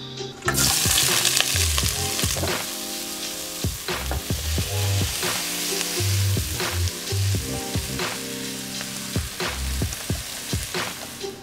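Sliced onion and green onion dropped into hot oil in a stainless steel pot, frying with a loud sizzle that starts about half a second in and keeps going while they are stirred with a wooden spoon.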